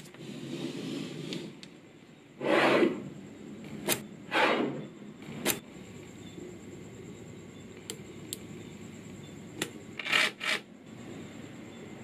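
Small magnetic balls on a magnet-ball model: a few sharp clicks as pieces snap into place, and three short scraping rubs as the model is handled.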